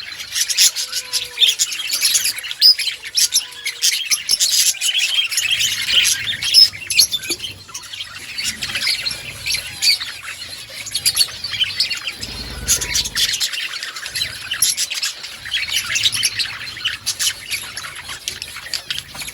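Many budgerigars chirping and chattering at once, a continuous overlapping mix of warbles, chirps and short squawks from a colony.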